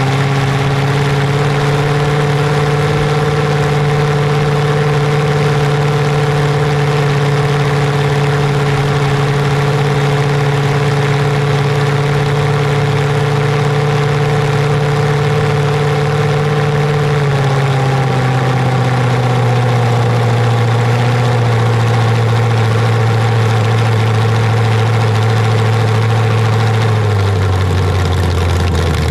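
A large engine running at a steady, held speed, its pitch dropping in two steps: once a little over halfway through and again near the end.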